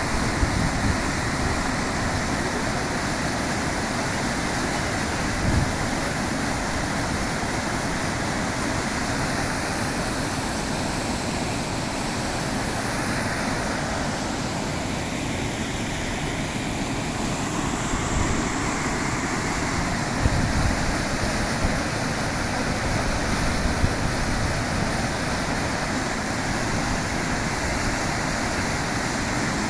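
Big Sioux River waterfall and rapids rushing: a steady, even wash of falling water with no letup, with low gusts of wind buffeting the microphone.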